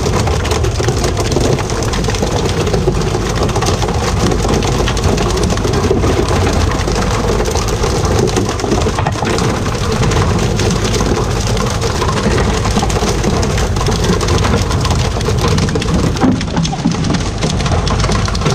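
Continuous hiss and spatter of water splashing on the sea surface alongside a tuna fishing boat, over the low, steady running of the boat's engine.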